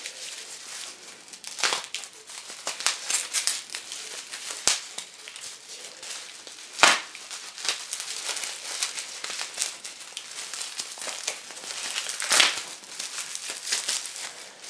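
Wrapping crinkled and torn off a deck of playing cards by hand: a continuous crackling rustle, with sharper loud crackles about 2, 7 and 12 seconds in.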